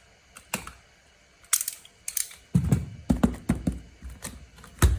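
A mystery box being handled and opened: a run of sharp clicks and taps, a couple of brief crackles about a second and a half in, then heavier knocks through the second half.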